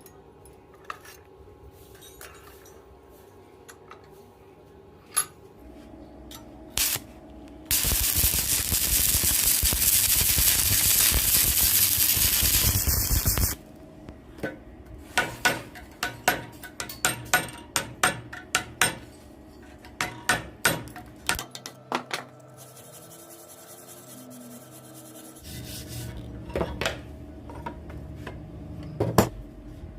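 Metalworking sounds: a loud, harsh, continuous noise for about six seconds, starting a few seconds in. It is followed by a quick run of sharp metal clinks and taps, then a quieter stretch and a few more taps.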